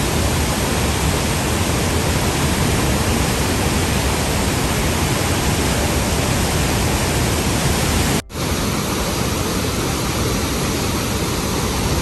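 Athabasca Falls' water rushing as a steady, loud wash of noise. It cuts out for a split second a little after eight seconds in.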